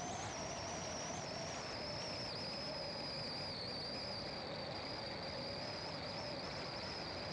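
A car driving: steady road and engine noise, with a faint high whine over it that wavers slightly in pitch.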